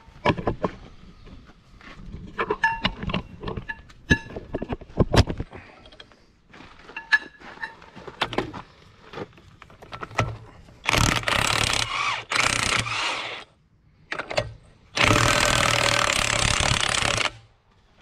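Impact wrench hammering a seized bolt loose on a tractor's dual-wheel hub, in two loud bursts of about two seconds each, a couple of seconds apart. Before them come scattered metallic clicks and knocks of tools being handled.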